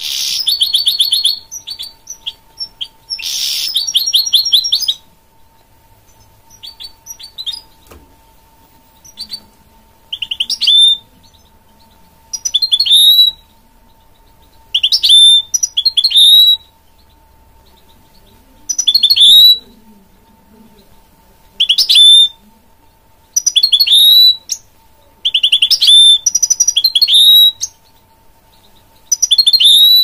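A goldfinch × canary hybrid (goldfinch mule) singing. Two long, rapid, trilled phrases come first, then after a pause short separate song phrases repeat every couple of seconds.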